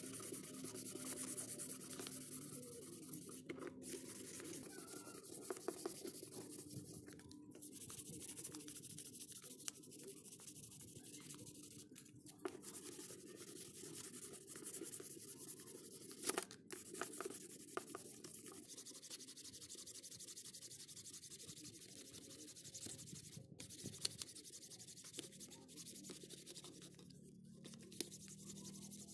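Sandpaper rubbed by hand, back and forth, over the plastic mid-frame and back cover of an Advan phone. It makes a steady scratchy hiss, broken by a few brief pauses.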